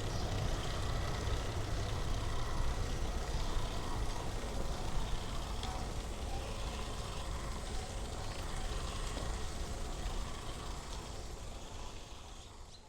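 Street traffic ambience: a steady low rumble of vehicle engines and passing traffic, fading out near the end.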